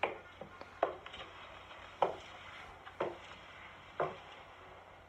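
Five sharp, woody knocks about a second apart, each short with a brief ring.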